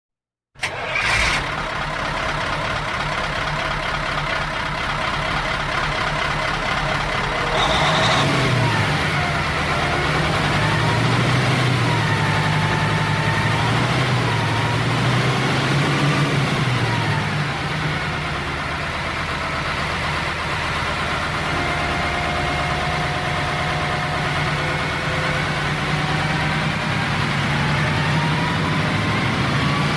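Diesel truck engine starting abruptly and settling into a steady run. A short hiss comes about eight seconds in, then the engine pitch rises and falls repeatedly as the truck pulls away and accelerates.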